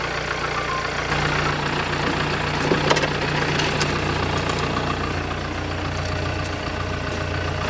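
A boat engine idling with a steady low hum. A few light clicks come around the middle.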